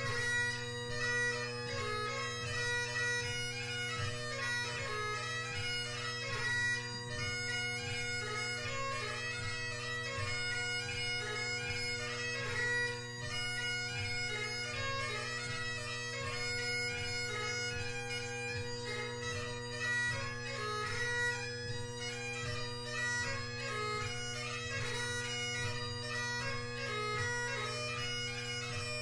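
Great Highland bagpipe playing a quick tune: a steady drone chord sounds under a fast-moving chanter melody packed with short ornament notes.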